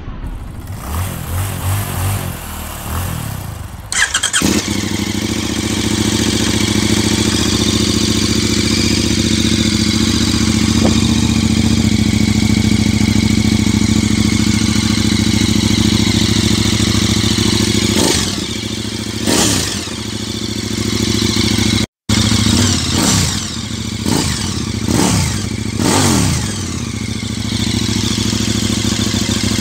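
KTM 1290 Super Adventure's 1301 cc V-twin running through an HP Corse aftermarket silencer: the steady idle comes in about four seconds in, and later the throttle is blipped several times, the pitch rising and falling with each rev.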